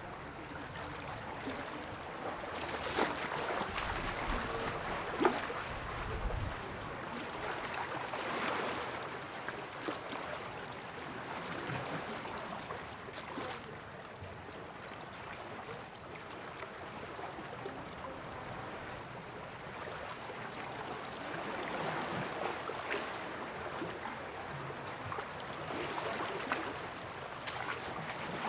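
Sea water washing and splashing, swelling and easing every few seconds, with a few small knocks.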